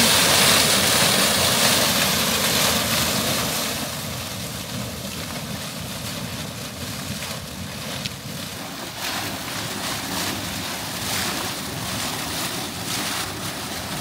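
Brubbel cold-water geyser erupting, its carbon-dioxide-driven column of water gushing and splashing down into the basin. The rush is loudest over the first few seconds, eases somewhat, then falls away right at the end as the eruption dies back.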